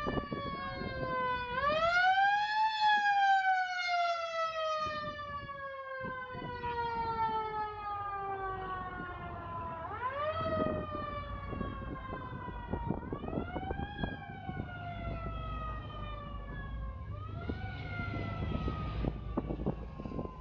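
An emergency-vehicle siren wailing over and over. Each cycle rises quickly and then falls slowly for several seconds, four times, with a low rumble underneath.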